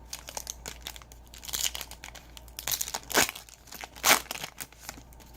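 A trading-card pack's foil wrapper being torn open and crinkled in the hands: a run of short crackles, with two louder rips about three and four seconds in.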